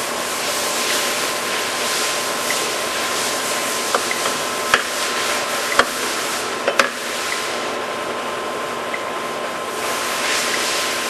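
Summit 36DC heavy-duty gap bed engine lathe running with its carriage creeping on slow longitudinal power feed: a steady whirring hiss with a thin steady whine. A handful of sharp clicks come about four to seven seconds in.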